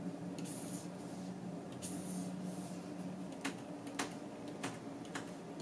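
Stylus scratching across the surface of a drawing tablet in a few short strokes, then four sharp clicks in the second half, over a steady low hum.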